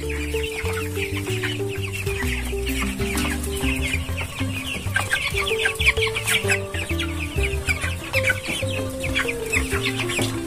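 A flock of three-week-old broiler chickens making many short, high cheeping calls, over background music with a plucked melody.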